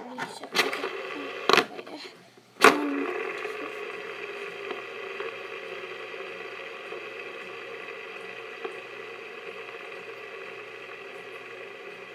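Metal fidget spinner handled on a tabletop with a few sharp clicks, then set spinning about three seconds in. Its bearing gives a steady whirring hum of several level tones that slowly fades as it keeps spinning.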